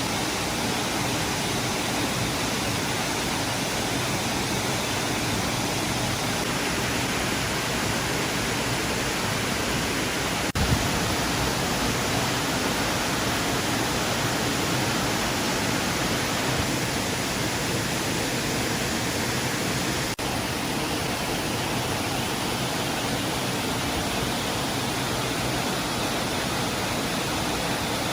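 Waterfall: a steady, even rush of falling water, with a brief click about ten seconds in.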